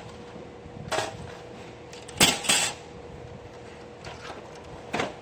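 Plastic side cover of an HP M401 printer being fitted back on: four sharp clicks and knocks, the loudest two close together about two seconds in.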